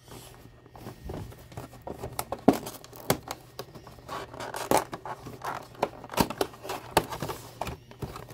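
Hands handling and opening a cardboard microphone box: irregular rustling, scraping and sharp clicks of paperboard as the box is turned over and its lid is lifted open, the loudest click about two and a half seconds in.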